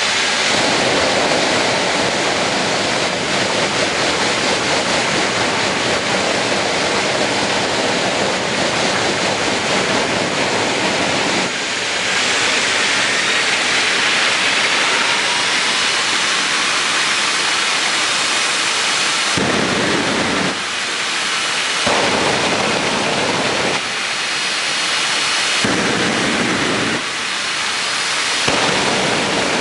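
Jet engines of jet-powered locomotive show vehicles running loud and steady. In the second half the sound surges and drops every couple of seconds.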